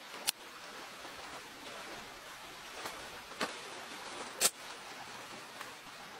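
Pressure kerosene lantern being handled and lit: a few sharp clicks, the loudest about four and a half seconds in, over a faint steady hiss.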